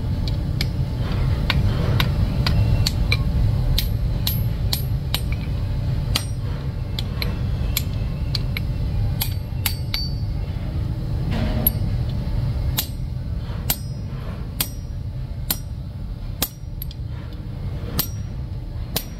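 Hammer blows on red-hot steel on a small anvil as a blacksmith's tong blank is forged: short ringing metal strikes at about two a second, sharper and louder in the later part. A steady low rumble runs underneath.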